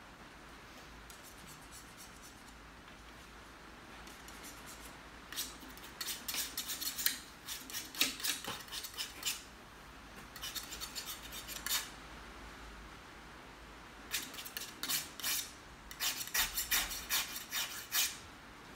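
Painting tools working paint on a palette and canvas: runs of quick, scratchy strokes and taps that start about five seconds in and come in three spells.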